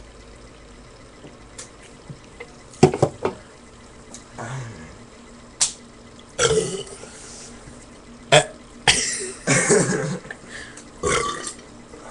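A series of burps from a person drinking soda, some short and some drawn out, with a few sharp knocks in between.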